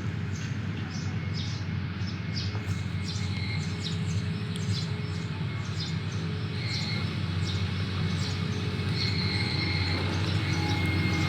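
Heavy-equipment diesel engine running steadily with a low hum, and birds chirping over it, mostly in the first half.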